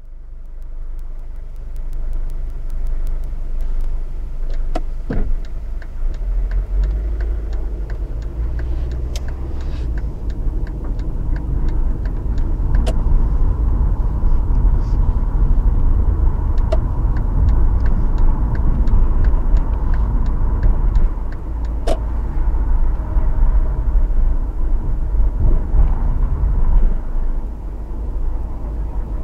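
Engine and road rumble heard from inside a moving vehicle: a steady low drone that fades in over the first couple of seconds, with a few sharp clicks scattered through it.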